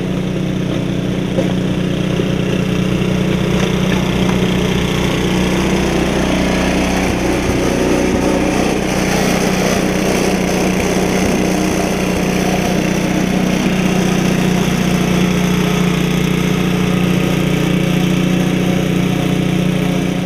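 1976 Ariens snow thrower's 5 hp Tecumseh HS50 single-cylinder engine running steadily under load as it blows snow.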